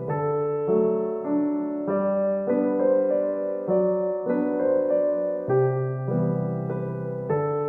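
Background music: a gentle solo piano piece, notes and chords struck at a slow, even pace.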